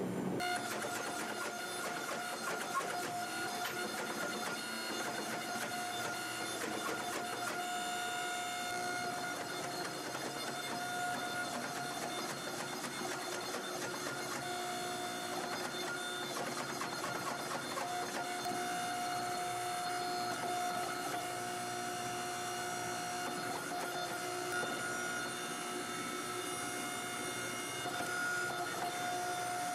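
Hydraulic forging press's pump motor running with a steady high whine as the press squeezes a hot steel billet.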